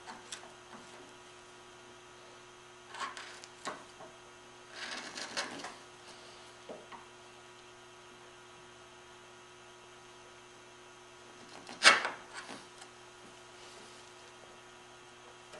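A steady electrical hum under a few short scraping strokes of a chisel paring wood. A single sharp knock about twelve seconds in is the loudest sound.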